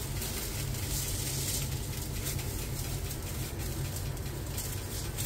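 Faint rustling and crinkling of disposable plastic gloves and aluminium foil as a large filled tortilla wrap is folded and rolled by hand, over a steady low hum.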